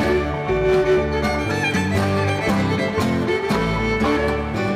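String band playing a contra dance tune: fiddle lead over strummed acoustic guitar, banjo and upright bass, with a steady beat.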